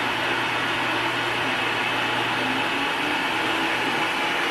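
Bladeless fan running: a steady rush of air with a low motor hum underneath.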